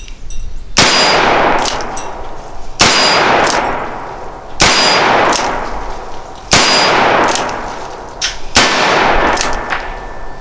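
Ruger New Vaquero .45 Colt single-action revolver fired five times, about two seconds apart, with 255-grain hard-cast lead semi-wadcutter loads; each loud shot is followed by a long ringing decay.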